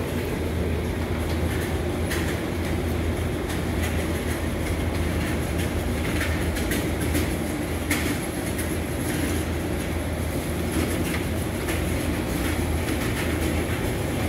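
Steady low machinery drone, unchanging throughout, with a few light clicks and taps scattered over it.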